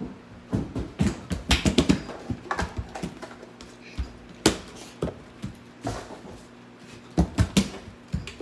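Irregular sharp clicks and knocks, some in quick clusters, over a faint steady low hum.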